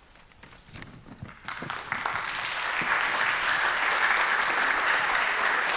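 Audience applauding: a few scattered claps that swell within about two seconds into full, steady applause.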